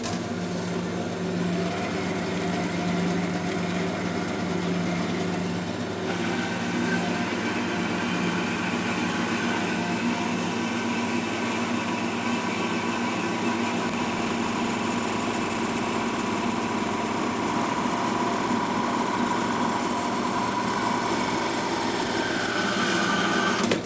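A power cutting tool running continuously and loud while slicing a chunk off a solid copper bar, its motor note wavering slightly under load. The cutting hiss grows about six seconds in, and the tool stops near the end.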